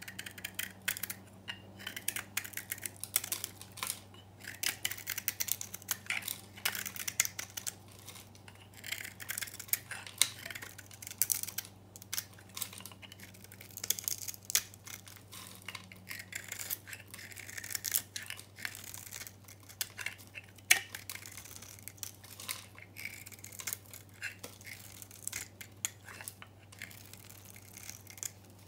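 Utility knife blade shaving a dry bar of soap coated in green paint and varnish. It makes a fast, irregular run of crisp, crackly scrapes with short pauses between strokes as curls and crumbs of soap break away.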